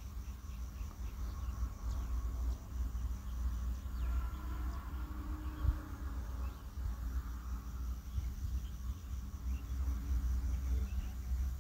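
Fast, even high-pitched chirping, typical of an insect, over a steady low rumble, with one light click a little before halfway.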